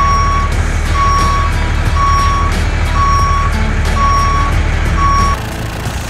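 A truck's reversing alarm beeping six times, about one beep a second, over a steady low engine rumble; both stop together near the end.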